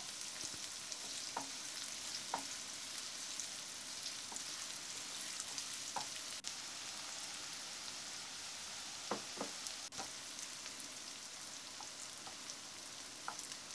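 Chopped red onions sizzling in hot oil in a frying pan, a steady hiss, stirred with a wooden spatula that scrapes and taps the pan now and then. They are being stir-fried until they turn translucent.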